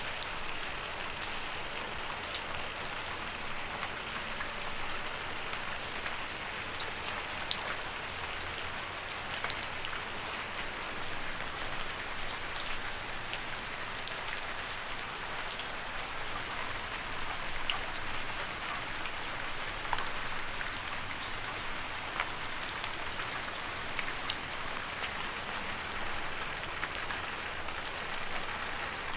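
Steady rain falling on a surface, a constant patter with individual drops ticking sharply here and there.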